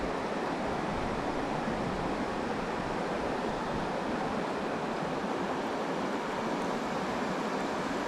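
Small mountain stream rushing over stones, a steady even sound of running water.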